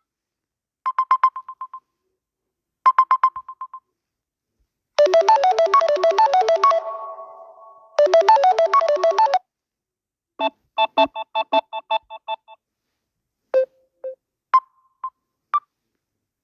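A series of short Samsung Galaxy A30 ringtone and alert sounds played one after another, separated by silent gaps. There are two quick runs of beeps on one pitch, then two short melodic phrases, a run of pulsing chords, and near the end a few single tones.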